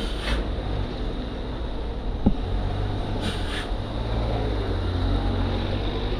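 Heavy articulated lorry's diesel engine running at low revs as it creeps past close by, with short hisses of air, one about three seconds in. A single sharp click sounds a little after two seconds.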